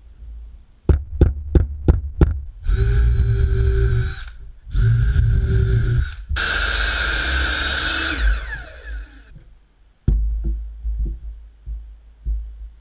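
A cordless drill boring into plywood in three runs, the last the longest, its pitch falling toward the end of that run. Five sharp knocks come just before the first run, and a few scattered knocks near the end.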